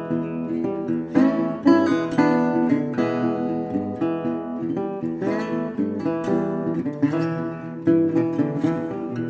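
Intro music played on acoustic guitar, a steady run of plucked and strummed notes.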